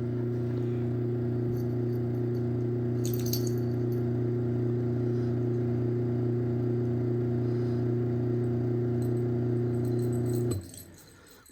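Chamberlain B353 belt-drive garage door opener's motor running through a cycle with a steady low hum, stopping abruptly about ten and a half seconds in.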